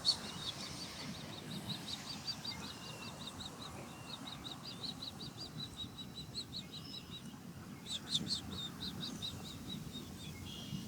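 Osprey giving a rapid series of short, high chirping calls, about five a second: one long run, then a shorter run starting about eight seconds in.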